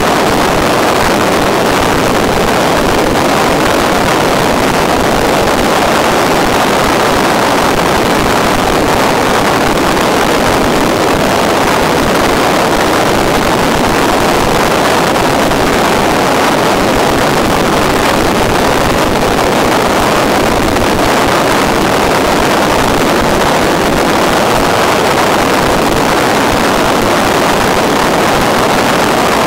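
Steady, loud rushing noise with no tone, rhythm or change, heard on the onboard audio feed of an FPV model plane in flight.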